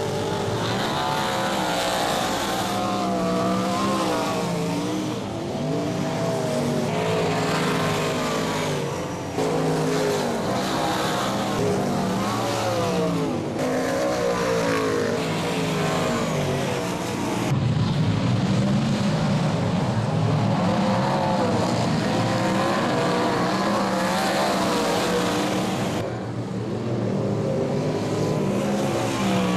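V8 dirt modified race cars' engines running hard, pitch rising and falling as they accelerate and pass. The sound changes abruptly several times where clips are cut together.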